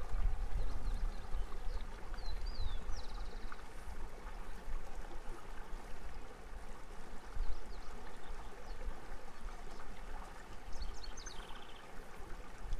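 Mountain river water running steadily, with a low rumble on the microphone and two short runs of high chirps, about two and a half seconds in and near the end.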